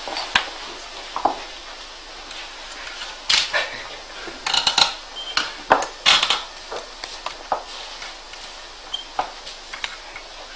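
Irregular metallic clicks and clinks from hands working at the base of a magnet motor to start it, thickest in the middle; no steady running sound.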